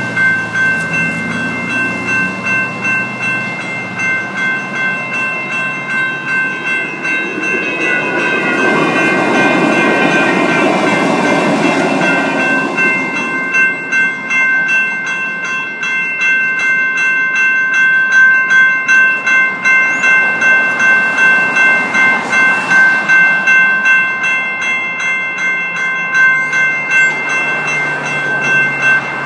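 Electronic crossing bells (General Signal Type 2 E-Bells) ringing at a railroad grade crossing, a steady bright ring at about two strokes a second, warning that a train is coming. A Siemens Duewag U2a light rail train passes through, its rumble swelling for several seconds around the middle. The bells stop near the end.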